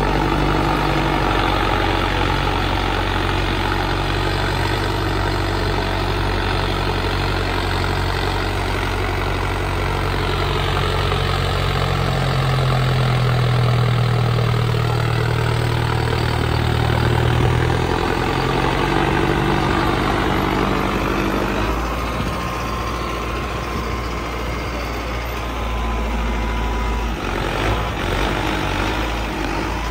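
Mahindra Arjun Novo 605 tractor's turbo-diesel engine, fitted with a modified fuel pump, running steadily under load while pulling a cultivator through the soil. Its pitch shifts a little from about ten seconds in and again a little after twenty seconds.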